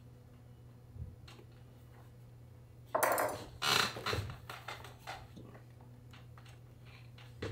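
Thick saddle-seat leather being pulled, flexed and rubbed against the saddle by hand: about three seconds in, a couple of seconds of loud rustling and scraping, then a few lighter rubs and a soft knock near the end.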